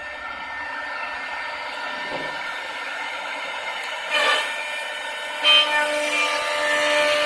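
CNC wood-cutting machine running and machining a wooden chair back: a steady whine with several tones, and short louder bursts of cutting noise about four and five and a half seconds in, after which the whine grows stronger.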